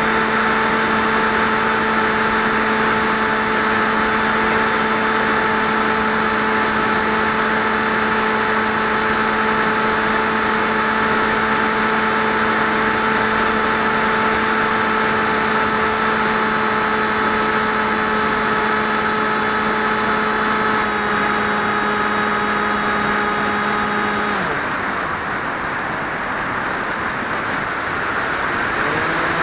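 Electric motor and propeller of an FPV flying wing heard from its onboard camera: a steady, even drone over rushing wind. About 24 seconds in the motor is throttled off and only the wind rush of the glide remains, until the motor spins up again at the very end.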